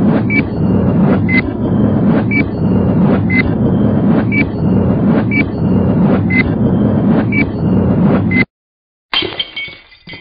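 Countdown intro sound effect: a steady low rumble with a tick and a short high beep once a second, one per number, cutting off suddenly about eight and a half seconds in. After a brief gap comes a sudden hit that rings and fades.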